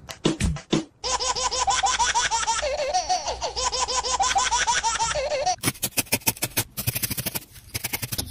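High-pitched rapid laughter of quick repeated "ha" syllables. It starts about a second in and cuts off suddenly about four and a half seconds later, with a fast rhythmic beat before and after it.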